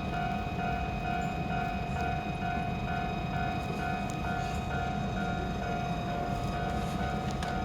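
Japanese railway level crossing's electronic warning bell ringing in a steady, rapid repeat, about two strokes a second, over a low rumble.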